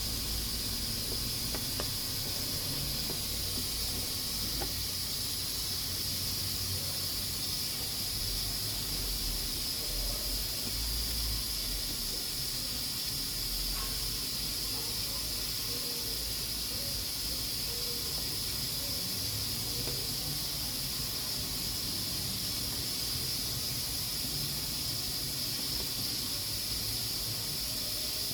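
Pressure cooker hissing steadily as steam escapes its valve, a high, unbroken hiss.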